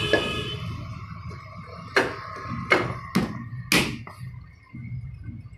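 Four sharp knocks in under two seconds, starting about two seconds in. Just after the start, a steady pitched tone with many overtones cuts off.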